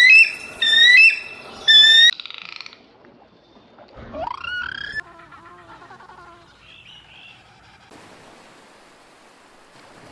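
A bird of prey calling: about four loud, short, high-pitched calls in the first two seconds, then one call sweeping upward in pitch about four seconds in. After that only faint background sound remains.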